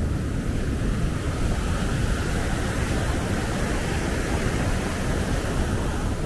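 Wind buffeting the microphone in a low, uneven rumble over a steady rush of water pouring through the dam.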